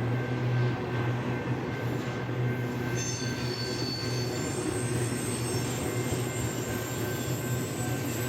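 Freight train rolling past over a steady low drone, its wheels squealing in several high steady tones that set in about three seconds in.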